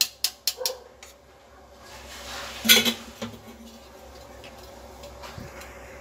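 A spoon taps quickly against a steel mesh strainer, about four sharp taps a second, and stops about a second in. Near the middle comes one loud metal clatter as the strainer is set down in a steel bowl, then only a faint steady hiss.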